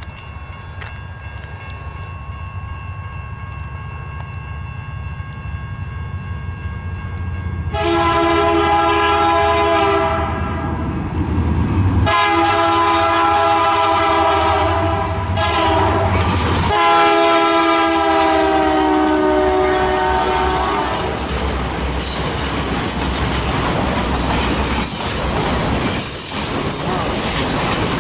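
Diesel freight locomotives approach with a rising engine drone, then sound the horn in the long-long-short-long grade-crossing signal. The last long blast lasts about four seconds, and then the train passes with the rumble and clatter of its wheels on the rails.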